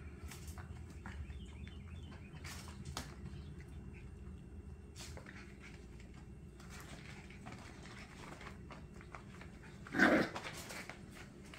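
Scottish Terrier puppies playing on puppy pads, with soft scattered scratching and rustling from their paws. About ten seconds in comes one short, loud puppy bark.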